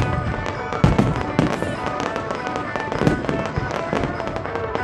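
Fireworks shells bursting in a rapid, irregular series of sharp bangs, several a second at times, over music from the display's soundtrack.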